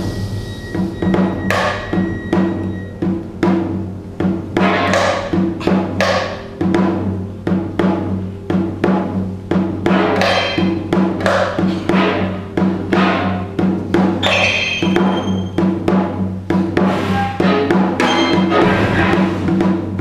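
Janggu, the Korean hourglass drum, struck with sticks in fast, uneven runs of sharp strokes over an ensemble holding steady low notes.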